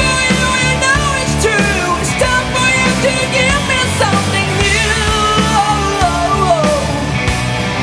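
Rock music from a full band, with a lead melody that slides and bends in pitch over steady bass and drums.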